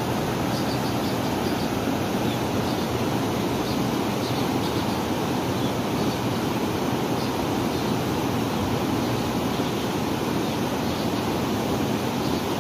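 Rushing water of a fast, swollen river in spate, a steady loud noise close by.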